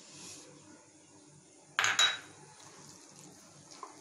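Ceramic bowls clinking together: two sharp clinks in quick succession about two seconds in, with a short ring.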